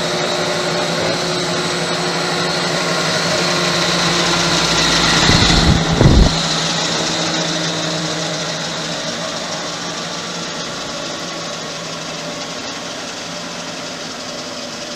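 Gardner 2H30-30 double disc grinder running, its 30 hp spindle motors giving a steady hum with several held tones. A brief low rumble comes about six seconds in.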